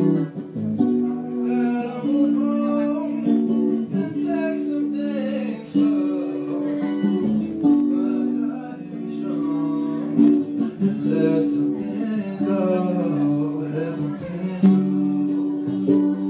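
A man singing while playing chords on an electric guitar.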